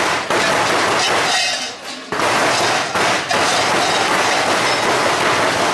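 Large cowbells worn on a Perchten fur costume's belt clanging hard as the wearer moves, in long loud bouts with a short lull about a second and a half in.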